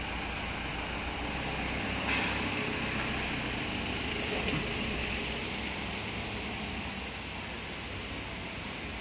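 Steady background machine noise, an even hum and hiss, with a light click about two seconds in.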